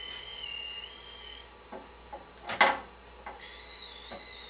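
High-pitched electronic whine from the oscillating driver circuit, its pitch shifting a few times and jumping higher near the end. A few light knocks and one sharp knock, the loudest sound, come about two and a half seconds in as a small lamp is handled.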